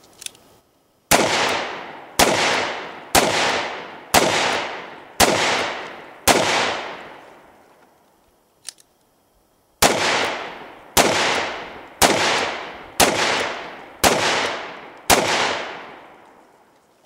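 Twelve shots from a single-action revolver, fired in two strings of six about a second apart, each shot trailing off in a long echo. Between the strings there is a pause of a few seconds with a single click.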